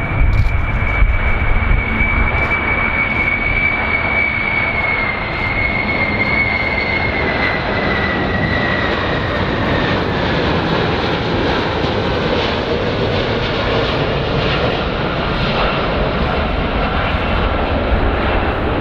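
Large aircraft's engines running loud, a dense roar with a high whine that slowly falls in pitch over the first half.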